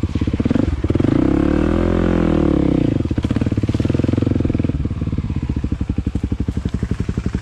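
Dirt bike engine running with a steady fast pulse; just under a second in it revs up and falls back over about two seconds, then settles again.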